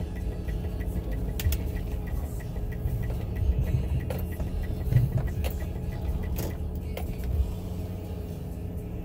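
Low, steady rumble of a car's engine and tyres heard from inside the cabin while driving slowly, with a few faint clicks.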